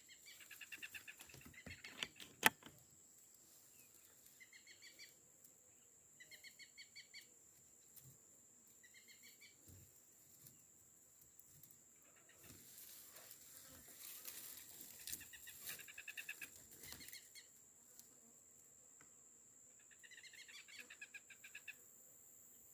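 A bird calling in short, rapid pulsed chatters, repeated about six times, over a steady high-pitched insect whine. A single sharp click about two and a half seconds in is the loudest sound.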